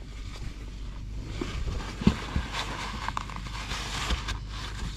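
Paper towel rustling and scrubbing as it wipes out the quad's open oil filter housing, thickest in the second half, with a few light knocks.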